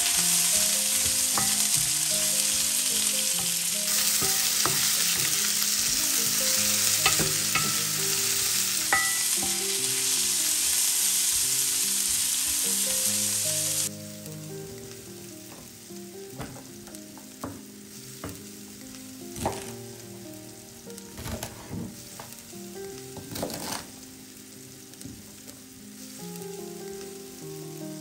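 Vegetables sizzling in oil in a frying pan while being stirred, with the clicks of a utensil against the pan. About halfway through, the sizzle drops off suddenly, leaving quieter scrapes and knocks of the utensil in the pan.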